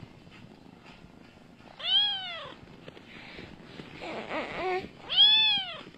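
Tabby cat meowing twice, two drawn-out meows that rise and fall in pitch, about three seconds apart.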